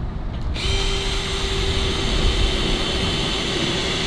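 Power drill starting about half a second in and running steadily with a whine, boring a bolt hole through the boat's fibreglass hull.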